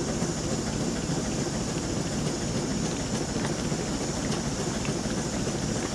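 The steam engine of the steam launch Consuta running steadily under way, a low churning rumble with a constant hiss of steam over it.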